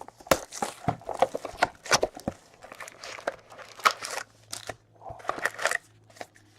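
Trading-card packaging being torn open and handled: irregular crinkling and crackling of plastic or foil wrappers, with sharp little clicks throughout.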